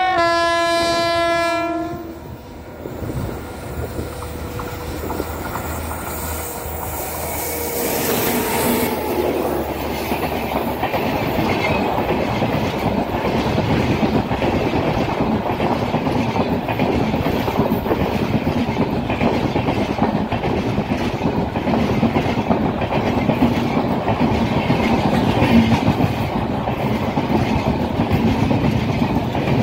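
A WAP7 electric locomotive sounds its horn for about two seconds, then runs past with a steady tone that drops in pitch about eight seconds in. Its passenger coaches follow, their wheels clattering steadily over the rail joints.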